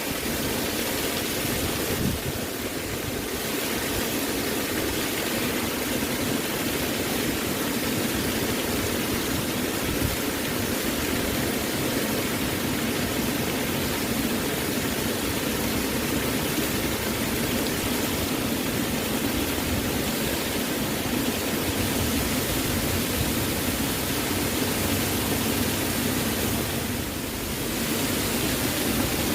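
Waterfall: a steady, even rush of falling water, easing slightly for a moment about two seconds in and again near the end.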